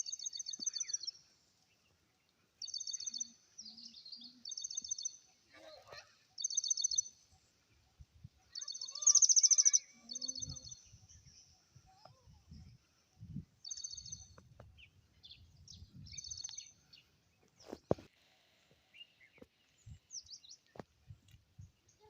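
A bird calling over and over in short, rapid high trills, each about a second long, the loudest near the middle. Faint low rumbling and a few knocks sit underneath in the second half.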